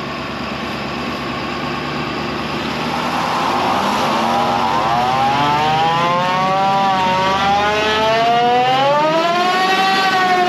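Lifted Ford Super Duty pickup doing a burnout: the engine revs up hard while the rear tyres spin on asphalt. It makes a rising, wavering whine that climbs over several seconds and starts to drop near the end.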